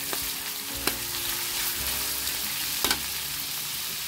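Chicken and shrimp sizzling as they fry in sambal in a pan, stirred with a utensil that knocks against the pan about a second in and twice close together near three seconds.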